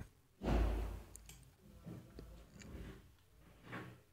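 Quiet pause with a soft low-pitched thud about half a second in, then a few faint, scattered clicks.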